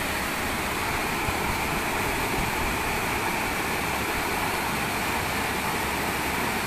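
Steady rushing of a muddy river in flood, with a tracked excavator's diesel engine running under it as the machine wades across.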